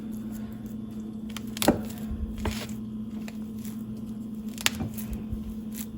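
Kitchen items being handled: four sharp knocks and clicks, the loudest about a second and a half in, over a steady low hum.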